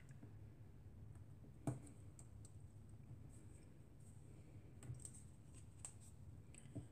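A few faint, scattered clicks and taps from small paper pieces and scissors being handled on a cutting mat, the clearest about a second and a half in.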